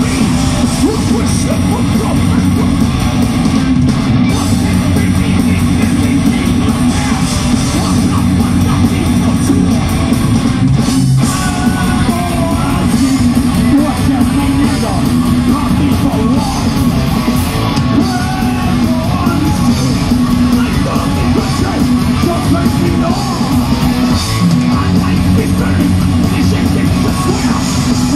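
Live heavy metal band playing at full volume: distorted electric guitars, bass and drums, with a singer's yelled vocals.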